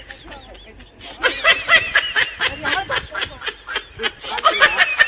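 Laughter in rapid, quick-fire pulses: a short bout trailing off at the start, then after about a second a long unbroken run of laughing.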